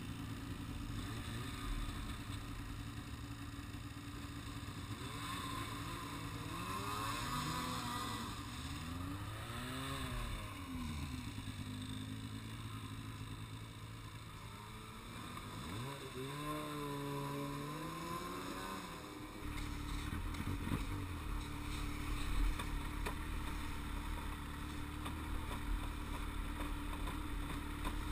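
Snowmobile engines: one idles steadily while another revs up and down, once about a quarter of the way in and again a little past halfway. From about two-thirds in, the nearby engine runs louder as its sled moves off.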